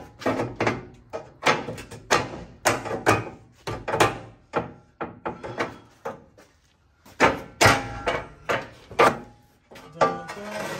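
Irregular metal clunks and knocks as a transmission cross member is shoved and worked into place against a Chevy C1500 pickup's frame, two or three a second, with a short pause a little past the middle.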